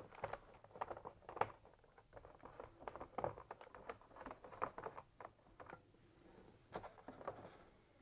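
Faint, irregular small clicks and scrapes of a screwdriver working the screws out of a fridge freezer's plastic evaporator fan, and of the fan being handled.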